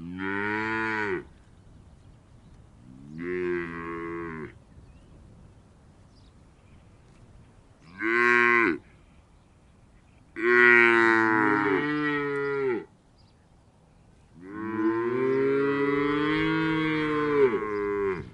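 Cows mooing: five separate moos with short quiet gaps between, a brief one about eight seconds in and the two longest near the end.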